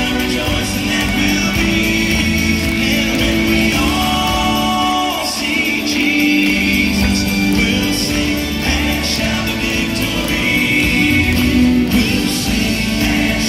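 Live gospel music: a male vocal group singing together in harmony to acoustic guitar accompaniment, amplified through a PA, with a long held note about four seconds in.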